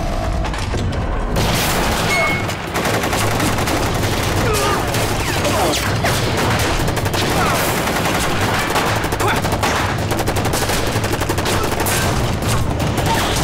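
Dense, rapid gunfire from several guns at once, a film battle's gunshot effects, breaking out about a second in after a low rumble.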